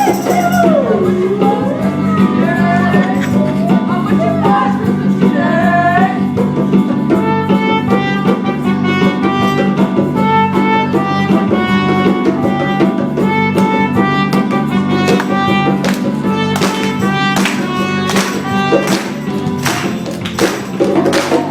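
A band playing a Christmas song. A singer's voice slides up and down for about the first six seconds, then an instrumental melody of short even notes takes over, with sharp percussive hits coming in over the last few seconds, all over a steady low drone.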